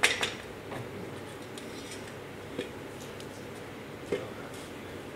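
Steel front-fork tubes of an M72 motorcycle clinking and knocking as they are handled on a concrete workshop floor: one sharp knock right at the start, then a few lighter knocks spread over the next few seconds.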